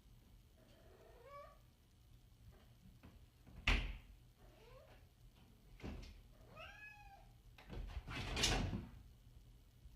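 A domestic cat meowing three times, each call bending up and down in pitch. A sharp knock comes a little before the second meow, and a louder noisy burst follows the third.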